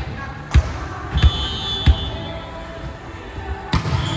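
Volleyball struck four times in a rally, sharp slaps echoing around a gymnasium, over music playing in the background.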